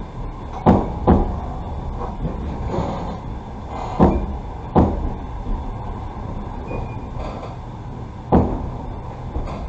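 Passenger train coach running on the rails, heard from inside: a steady rumble from the wheels, broken by several sharp knocks, some in pairs, as the wheelsets cross rail joints.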